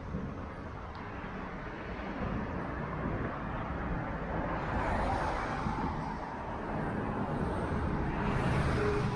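Road traffic: cars driving past on a street. One swells past about five seconds in and another, louder, near the end.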